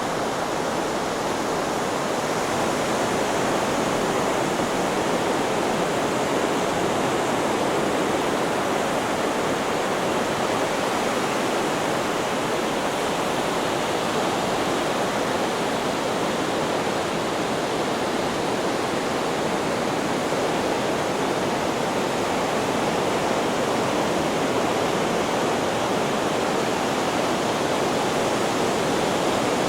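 Steady, even rushing hiss of a white-noise sleep track, unchanging in level, without the rise and fall of breaking waves.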